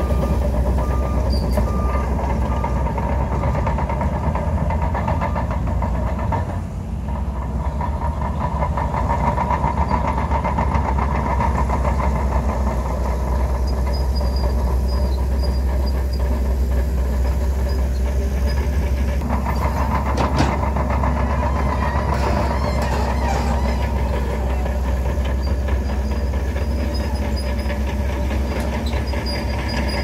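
Heavy diesel engine of a Shantui DH17 crawler bulldozer running steadily under load as it works its tracks through waterlogged sand, a deep, continuous drone. It eases off briefly about six seconds in, then picks up again.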